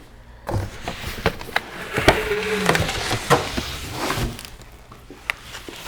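A packed bicycle being pulled from its cardboard shipping box: cardboard and packing material scraping and rustling, with several sharp knocks and clunks. The handling is busiest in the middle and quietens near the end.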